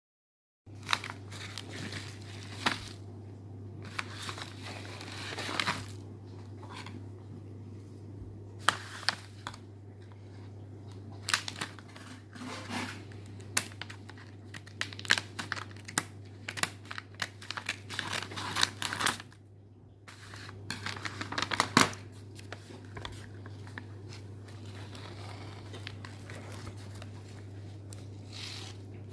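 Plastic snack bag of caramel-coated popcorn crinkling as it is handled and torn open, with irregular sharp crackles and a short lull near the end. A steady low hum runs underneath.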